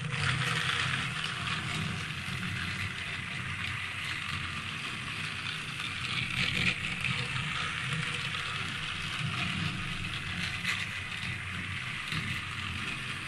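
Battery-powered toy train running on a plastic track: its small electric motor whirs and the plastic wheels and cars rattle steadily as it circles the oval. The sound starts abruptly as the train is set going.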